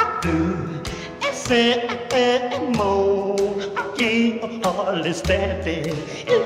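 Mid-1950s rockabilly record: a man's voice singing with a wavering vibrato, over guitar and a clicking, slapped-bass rhythm.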